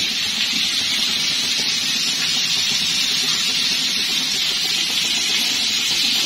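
Marinated chicken steaks sizzling in butter and oil in a frying pan, a steady hiss.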